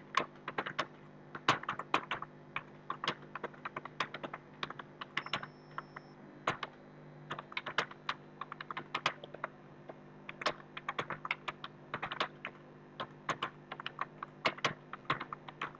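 Computer keyboard being typed on continuously, quick irregular keystroke clicks in bunches with brief pauses, over a faint steady hum.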